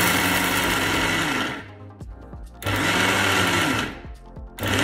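Electric mixer grinder (mixie) grinding soaked chana dal without water, switched on and off in short pulses to keep the dal coarse. The motor whirs, winds down in pitch as it is cut about a second and a half in, runs again for about a second and a half, and starts a third time near the end.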